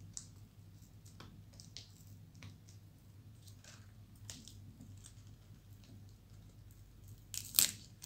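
Sticker tape being peeled off a laptop LCD's display-cable connector: faint scattered crackles and ticks, then a louder crackling rip near the end.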